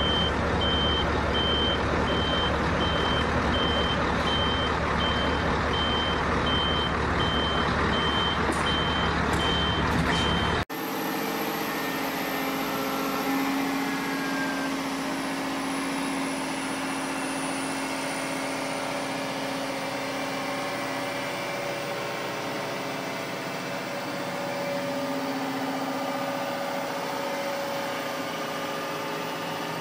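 Heavy truck engine running with a reversing alarm beeping over it. About ten seconds in it cuts off suddenly to a quieter, steady machine hum with a few held tones and a thin, slowly falling whine.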